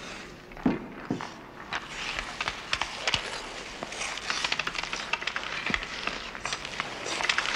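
Ice hockey players skating on a rink: skate blades scraping the ice amid many sharp clacks of hockey sticks on the ice and puck. Two heavy thuds come in the first second or so.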